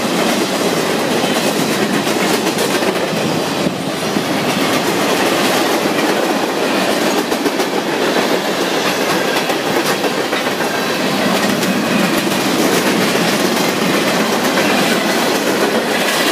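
Freight train's boxcars and tank cars rolling past, a steady, loud noise of steel wheels on the rails.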